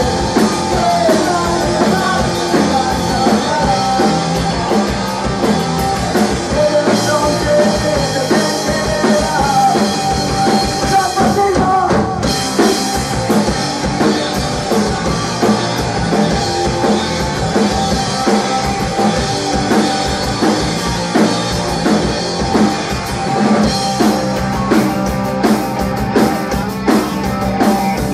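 Rock band playing live: electric guitar, bass guitar and drum kit, loud and steady, with a run of sharp drum and cymbal hits near the end.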